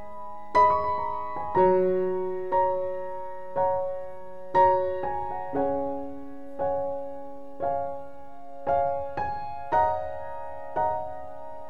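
Background music: slow, soft piano chords struck about once a second, each fading before the next.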